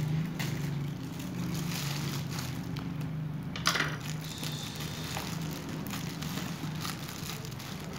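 Plastic parcel wrapping and tape crinkling and crackling as hands pull and tear at it, with one sharp snap about three and a half seconds in.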